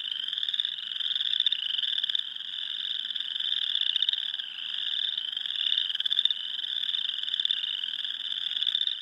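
A dense spring chorus of many small animals calling together in overlapping trills. It runs steady and shrill, with one high band of calls and a weaker, lower one beneath.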